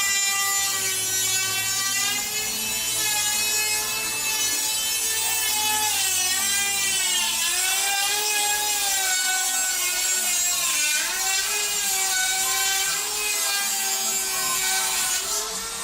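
Dremel rotary tool running against a workpiece, a high whine that keeps dipping and rising in pitch as the bit bears down and eases off.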